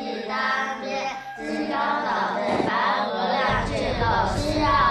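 A high singing voice over background music. A deep low layer comes in about three and a half seconds in.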